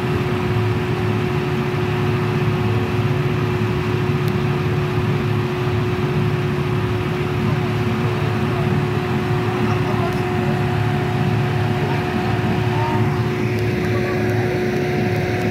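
Steady mechanical drone, like an engine or a large fan running, with a constant humming tone over a dense low rumble.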